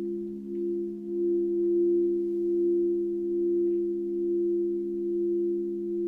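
Singing bowls ringing in sustained, layered low tones that waver and swell slowly, growing louder about a second in.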